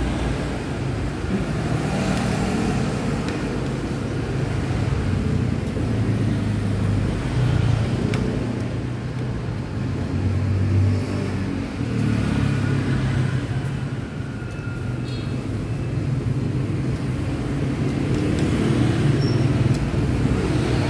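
Street traffic of motor scooters passing close by: a continuous low engine rumble that swells and fades as bikes go past.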